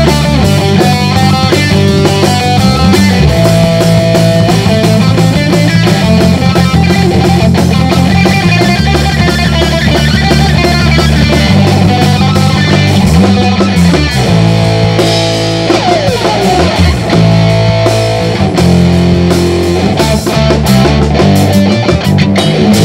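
Live rock band playing an instrumental passage: electric guitar, bass guitar and drum kit, loud and driving, with a note sliding down and back up about two-thirds of the way in.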